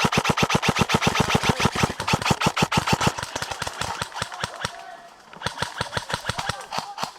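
Airsoft gun firing full-auto: a rapid, steady rattle of about ten shots a second that dies down about four to five seconds in, then starts again.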